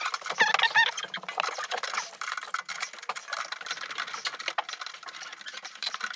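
Rapid, irregular light clicks and taps of small hard parts being handled, typical of fiddling with tap fittings and tools. The sound cuts off abruptly at the very end.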